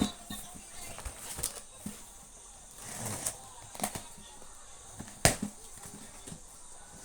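Chocolate boxes and their packaging being handled: scattered knocks and taps with some rustling, the loudest knock about five seconds in.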